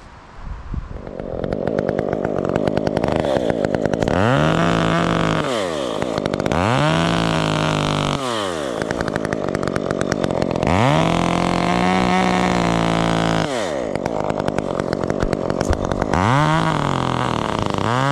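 Two-stroke chainsaw running, revved up from idle four times, each rev held for a second or two before dropping back to idle.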